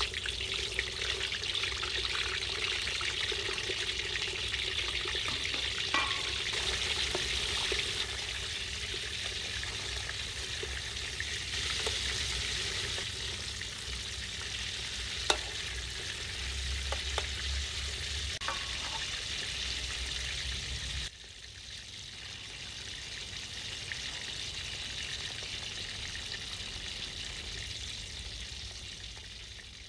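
Pork belly pieces frying in hot vegetable oil in a steel wok, a steady sizzle, the stage that crisps the skin for crispy pork (moo krob). A few sharp clicks as the pieces are turned with a ladle, the loudest about halfway; the sizzle drops quieter about two-thirds of the way through.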